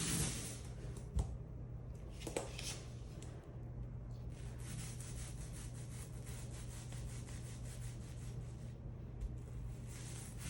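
Paint roller rolling wet paint onto a wall, a steady rasping swish that is loudest from about four seconds in until near the end.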